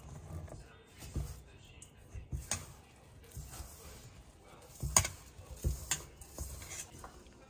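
Hands kneading a crumbly mix of date paste and ground nuts in a stainless steel bowl: soft squishing and rubbing with low thumps, broken by a few sharp clicks against the bowl, the loudest about five seconds in.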